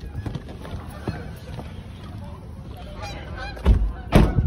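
A flock of birds calling, short calls scattered over a low background, with two loud thumps near the end.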